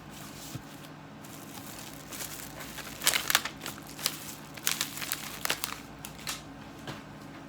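Packaging crinkling as it is handled, a run of irregular rustles and crackles, thickest from about three seconds in.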